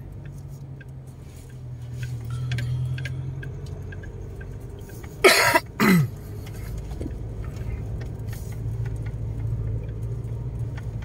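Car driving slowly over a rough, wet gravel and dirt road, heard from inside the cabin: a steady low engine and road rumble with scattered small ticks. About five seconds in, someone in the car coughs twice, loudly.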